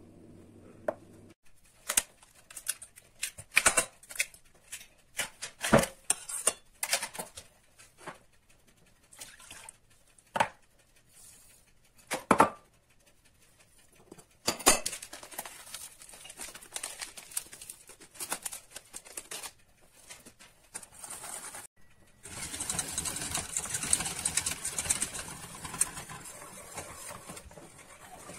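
Kitchen handling sounds: a run of sharp knocks and taps from dishes and utensils, then a steady rustling scrape as flour, egg and milk are mixed in a steel pot, loudest a little past the middle.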